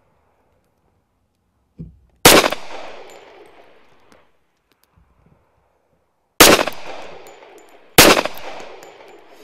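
Three shots from a semi-automatic pistol, the first about two seconds in and the last two about a second and a half apart, each trailing off in a long echo.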